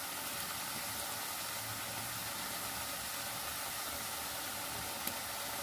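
Potato namkeen pieces deep-frying in hot oil: a steady sizzle, with one faint click about five seconds in.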